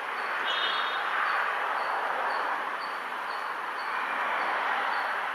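Steady noise of a train hauled by a WAG-5 electric locomotive approaching in the distance. A bird chirps a short high note about twice a second, with a brief call about half a second in.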